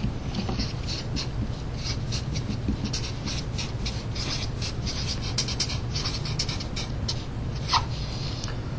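Marker pen writing on paper: short, irregular squeaky strokes, over a steady low hum.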